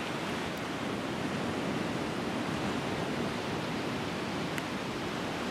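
Atlantic Ocean surf washing onto the shore as a steady, unbroken rush with no single wave standing out.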